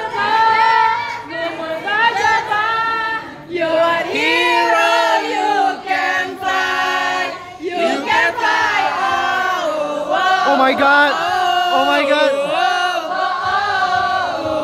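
A woman singing a slow melody into a microphone through the hall's speakers, with a crowd of voices joining in. A long held note comes about halfway through.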